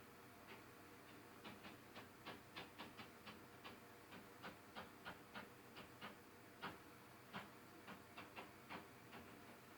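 Faint, irregular tapping coming through the ceiling from the condo upstairs: sharp little taps at roughly two or three a second, bunched most densely through the middle, over a faint steady hum.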